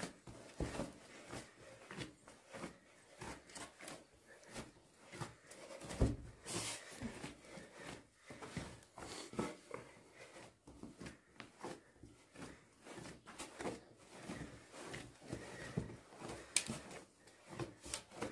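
Bread dough being kneaded by hand in a large metal basin: irregular soft thumps, squishes and knocks as the dough is pressed and folded, the loudest thump about six seconds in.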